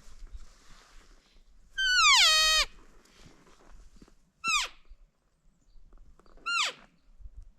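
Elk calling: one long, clear call that falls in pitch in steps, then two short chirps a couple of seconds apart, typical of elk mews and chirps.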